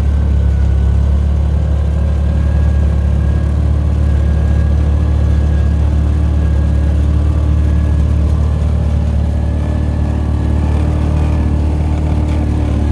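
Yamaha Rhino 700 side-by-side's single-cylinder engine running at a steady speed on the move, a loud, even drone with a faint steady whine above it.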